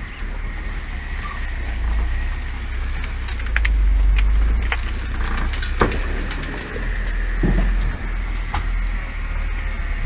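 Opel Frontera A Sport's engine running with a low rumble as the 4x4 crawls through dense brush, with branches scraping and snapping against the body in scattered sharp clicks, thickest in the middle.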